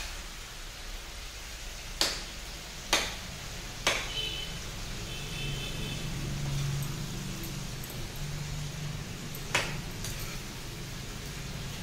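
Potato and cauliflower being stirred with a spatula in a kadhai over a gas burner. The spatula knocks sharply on the pan three times, about a second apart from about two seconds in, and once more near the end.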